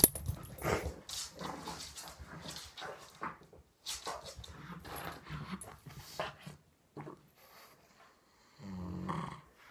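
A pug making a run of short, irregular vocal noises, with a longer low-pitched one about nine seconds in.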